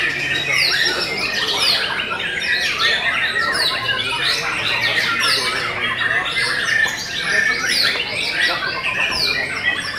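White-rumped shamas singing in competition, several birds at once. The result is a dense, unbroken stream of overlapping loud whistles and quick falling notes.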